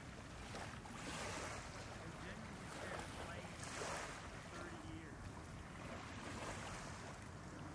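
Faint open-air waterside ambience: a steady low rumble under a soft, swelling hiss of breeze and water.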